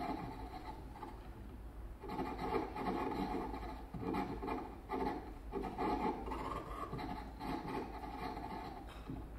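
Experimental live music made of rubbed and scraped sounds, coming in uneven gestures with short breaks, with a faint rising tone about six seconds in.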